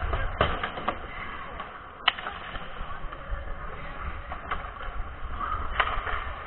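Ice hockey play: skate blades scraping across the ice, with a few sharp clacks of sticks and puck, the sharpest about two seconds in.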